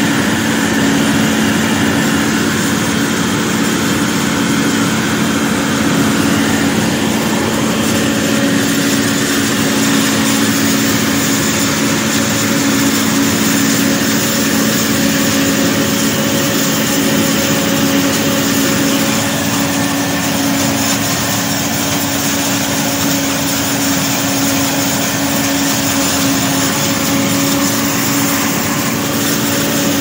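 Tractor engine and a pull-type forage harvester running steadily under load while cutting and chopping corn for silage: a continuous, even drone.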